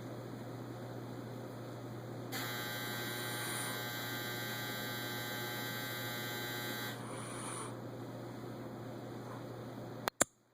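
An alarm buzzing for about four and a half seconds, starting about two seconds in, over a steady low hum. Two sharp clicks come near the end.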